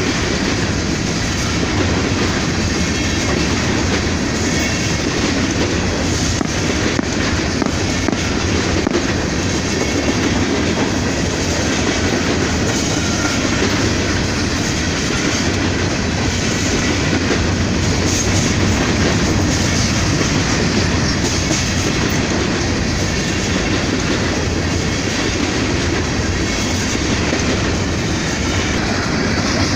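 Freight train cars rolling past, steel wheels running over the rails with a steady, unbroken noise.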